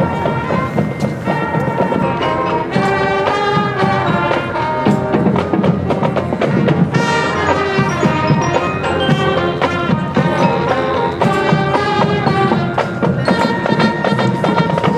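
Marching band playing a tune as it approaches: pitched melody notes over steady drum beats.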